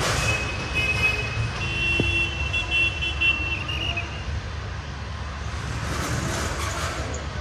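Steady low rumble of road traffic. A high, steady, horn-like tone sounds for about three seconds from just under a second in, with a single sharp click about two seconds in.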